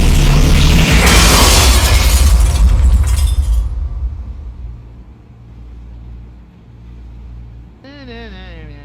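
A loud, noisy rumble that fades away over about four seconds, leaving a low hum. Near the end a short wavering tone slides downward.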